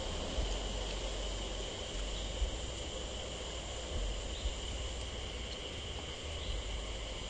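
Steady insect chorus, a high drone held at one pitch throughout, over a low rumble.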